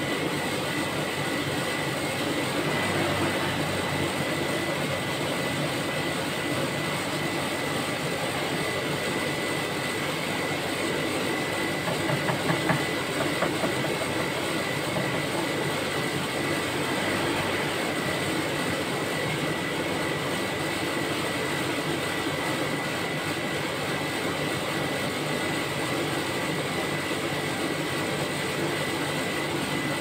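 Rolled ice cream machine running, its 1 HP R32 refrigeration compressor and condenser fan giving a steady whooshing hum with a thin, high whine over it, as the freezing plate pulls down below −14 degrees. A few light knocks come about twelve seconds in.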